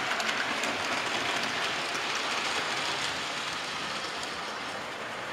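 Model railway train, a small steam locomotive hauling goods wagons, running on the layout track: a steady rolling rattle of wheels on rail that grows slightly quieter as the train goes into the tunnel.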